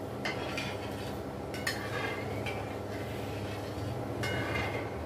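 Metal spoon clinking and scraping against a metal kadhai while stirring sugar into water as it dissolves into syrup, a few separate clinks over a low steady hum.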